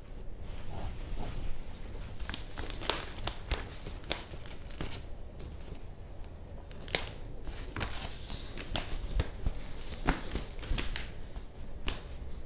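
Broadsheet newspaper pages crinkling and rustling in irregular crackles as they are lifted and shifted, over a low steady train rumble.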